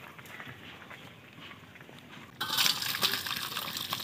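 Fish curry poured from an iron kadai into a stainless steel bowl: a sudden splashing pour with sharp metallic ticks starting about two and a half seconds in, after a stretch of faint crackling.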